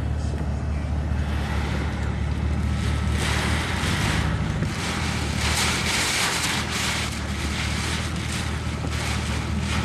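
Strong hurricane wind blowing and gusting across the microphone, swelling louder about three seconds in, over a steady low hum.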